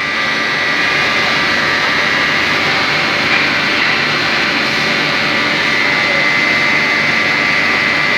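Industrial wood sanding machine running steadily: a loud, even rushing noise with a constant high whine.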